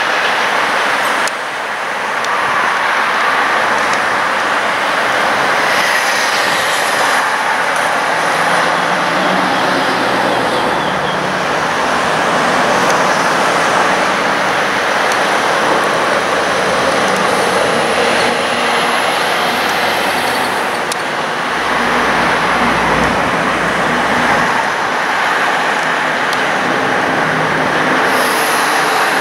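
Steady road traffic and construction-site noise: cars and trucks passing on a busy multi-lane road while heavy machinery works, with a deeper rumble swelling briefly a little past the middle.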